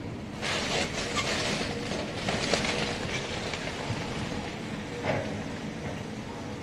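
Heavy demolition machinery breaking up a house: bursts of crunching and cracking debris over a steady engine hum, loudest from about half a second to three seconds in, with another burst near five seconds.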